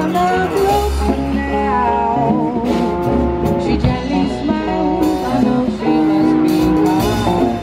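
Live band playing a soft-rock tune on electric guitar, acoustic guitar, keyboard and drum kit, with steady drum hits under held guitar and keyboard lines.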